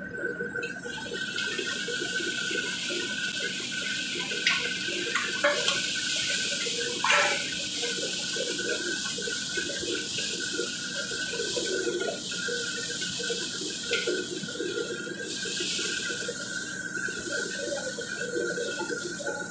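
Stir-frying in a wok over a high-powered burner: a steady rushing hiss from the flame and the sizzling food, with a steady high whine underneath. The metal ladle scrapes and knocks against the wok a few times, loudest about seven seconds in.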